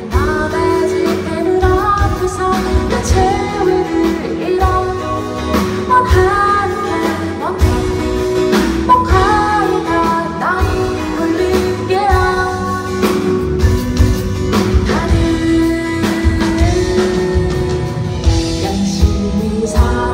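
Live pop music: a woman singing with a band, over guitar and a steady drum beat.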